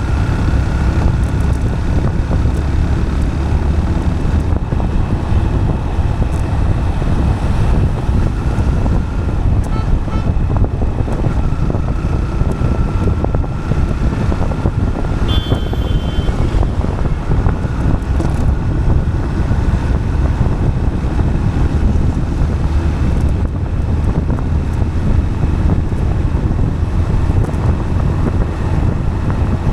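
Steady road rumble of a vehicle rolling on asphalt with wind buffeting the microphone, and a faint steady whine over it. A brief high chirp about halfway through.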